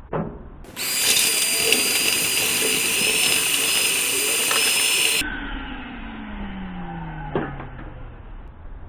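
Handheld power tool running for about four and a half seconds with a steady high whine, then switched off and coasting down, its pitch falling over the next few seconds. A sharp knock comes near the end.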